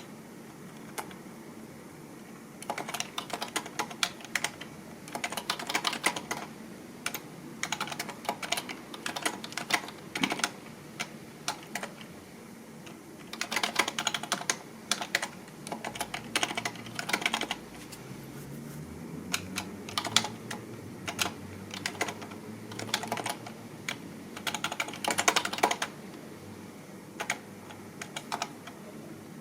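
Typing on a computer keyboard: runs of rapid keystrokes, broken by short pauses of a second or two.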